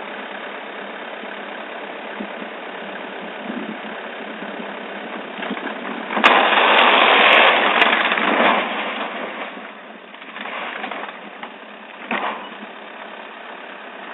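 An engine runs steadily, then about six seconds in an old barn gives way and collapses with a loud crash lasting about two seconds that trails off. A further thud comes about twelve seconds in.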